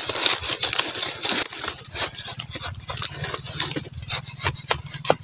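Dry leaf litter and sandy soil rustling and crackling under fingers as a clump of termite mushrooms is dug out of the ground, with many small irregular clicks.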